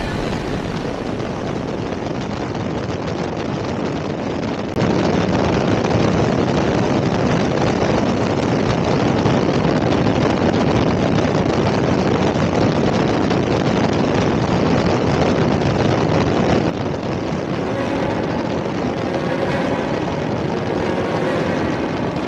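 Motorcycle riding at speed: steady wind rush and engine and road noise on the bike-mounted microphone. It jumps louder about five seconds in and drops back down a few seconds before the end.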